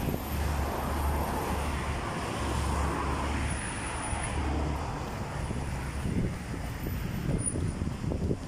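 City street traffic going by, with wind buffeting the microphone in low rumbles during the first few seconds.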